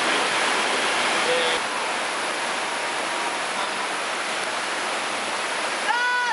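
Whitewater rapids rushing steadily over boulders. Near the end, a quick series of short pitched calls or tones starts up.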